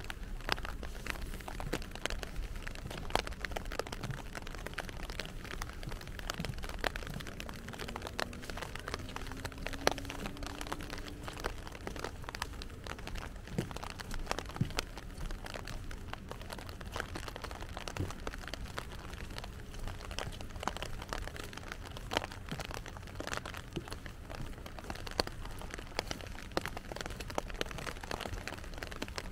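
Steady rain, with a dense, crackling patter of drops striking a close surface over a low rumble. A faint rising hum passes about a quarter of the way in.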